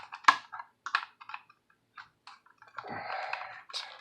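Scattered sharp clicks and small knocks, with a short scraping rustle about three seconds in: a screwdriver and its screws being worked against a plastic smoke-alarm mounting bracket as the bracket is tightened to the electrical box.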